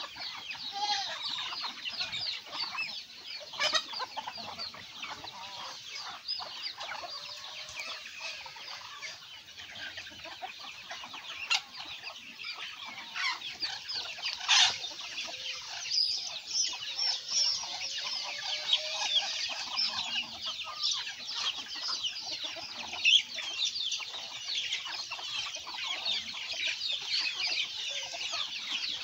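A flock of chickens feeding, with continuous clucking and a dense chatter of high, rapid peeping calls, broken by a few sharp clicks.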